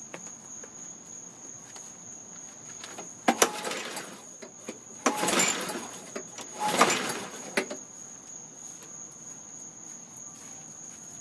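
Three pulls on the recoil starter of a Briggs & Stratton Quantum lawn mower engine, each a rough whirring crank of about a second, without the engine catching. Crickets chirp in a steady high trill throughout.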